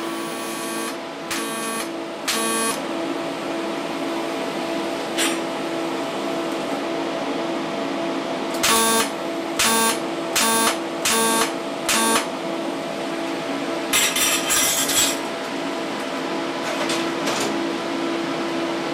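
TIG welder tack-welding a stainless steel wire grill: a series of short buzzing arc bursts, three in the first few seconds, five in quick succession around the middle and a longer, rougher one a little later, over a steady hum.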